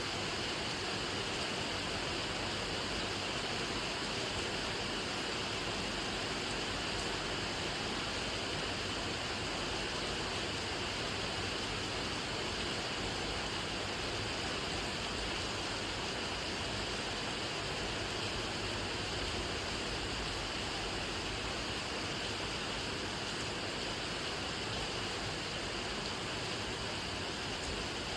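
Steady rain falling, an even unbroken hiss with no separate drops or thunder standing out.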